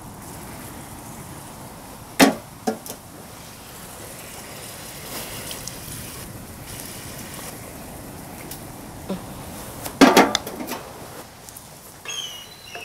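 Wooden spatula and clay bowl working chilli sauce in an iron wok over a wood fire: a steady low hiss of the cooking, with two sharp knocks against the wok about two seconds in and a quick cluster of knocks near the ten-second mark.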